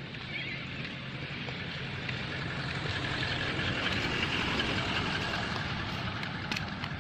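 A motor vehicle running with a steady low hum, its engine and tyre noise swelling to a peak midway and then easing off, as a vehicle passing by.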